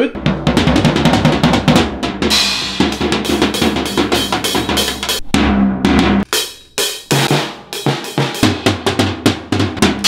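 Drum kit played in a fast, rough flurry: rapid hits on the snare and toms with bass drum kicks, and a cymbal ringing over it for a few seconds. The playing stops briefly about six seconds in, then starts again.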